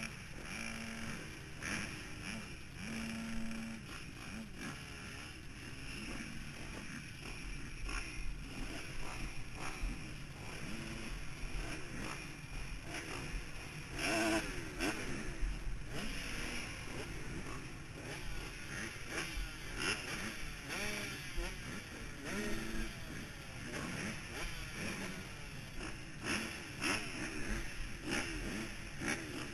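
Motocross motorcycle engines running and revving, with rising and falling pitch, heard through a helmet-mounted camera.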